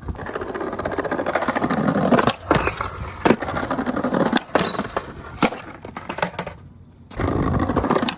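Skateboard wheels rolling, with a series of sharp clacks of the board hitting the ground through the middle, then a short break and rolling again near the end.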